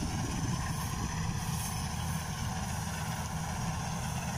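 Kubota DC-93 rice combine harvester running at work, a steady machinery drone with faint high whines over it.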